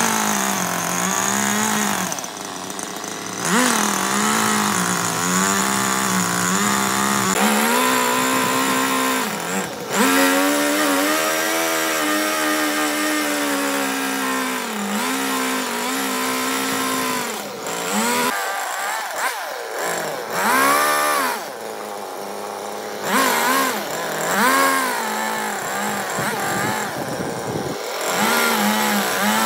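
Husqvarna two-stroke chainsaw cutting through a burned log. Its engine pitch sags repeatedly as the chain bites into the wood and climbs again as it frees, with a few brief drops and quick revs in the second half.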